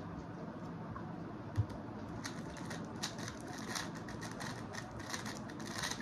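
X-Man Tornado V3 M magnetic 3x3 speedcube being turned very fast in a speedsolve: a dense, irregular run of quick plastic clicks and clacks that starts about two seconds in, after a single soft thump.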